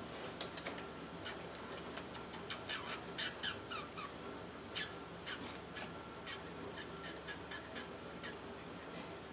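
Magic: The Gathering cards being handled and shuffled in the hands: a quick run of card clicks and snaps, busiest in the first half and thinning out after about five seconds.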